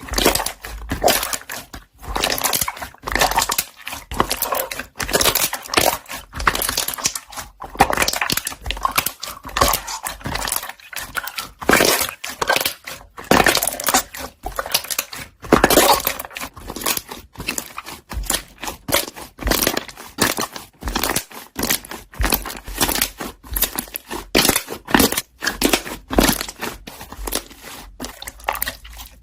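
Slime being squeezed and pressed by hand, letting off a rapid, irregular run of crackling air-bubble pops.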